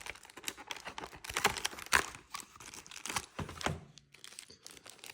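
Packaging being handled and torn open by hand: irregular crinkling, tearing and small clicks as a numbered door of a fishing-lure advent calendar is opened and the lure taken out, with the sharpest crackle about two seconds in.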